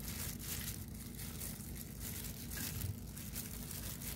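Basting brush working barbecue sauce onto a raw butterflied chicken in a disposable aluminium foil pan: soft, repeated brushing strokes with light crinkling.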